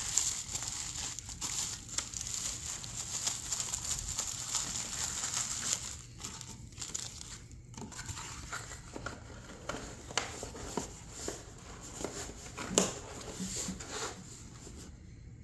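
Plastic bubble wrap crinkling as it is handled, for about six seconds, then softer rustling and scattered taps of a cardboard box being closed, with one sharper knock near the end.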